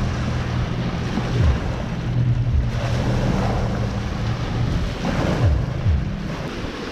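Small waves breaking and washing up onto a sandy beach, with wind buffeting the microphone in a few low thumps.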